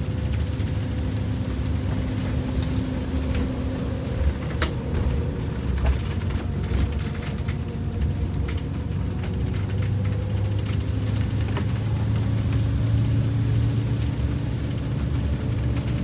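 Wanderlodge bus's Detroit Diesel 8V92TA two-stroke turbocharged V8 diesel running under way, heard from the cab with road noise and sharp interior rattles; the engine note rises and grows louder from about ten seconds in. The engine has four new pistons and liners and is on its first test drive.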